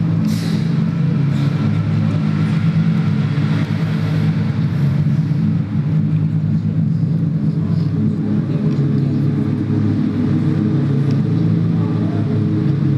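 A loud, steady low drone, engine-like in character, from the dance piece's soundtrack.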